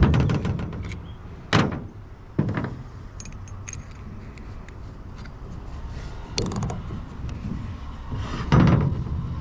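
Tools being handled: scattered clicks, knocks and light metallic rattles, with a louder burst near the end.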